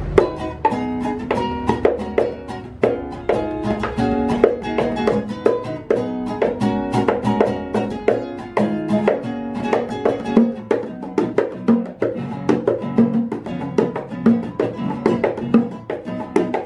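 Live instrumental duo: a nylon-string classical guitar picking a quick run of single notes, with bongos tapped alongside in a steady rhythm.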